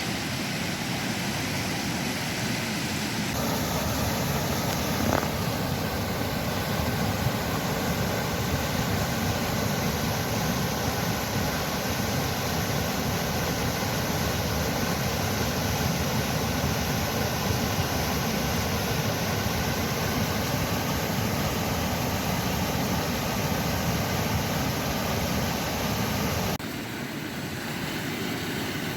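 Small waterfall on a mountain stream: a steady rush of falling water, its tone shifting abruptly twice, a few seconds in and near the end.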